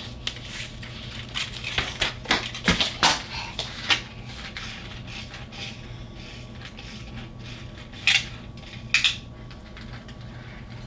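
Diecast pull-back toy cars being handled on a toy road track: a quick run of clicks, rattles and knocks, then two sharper clatters about eight and nine seconds in.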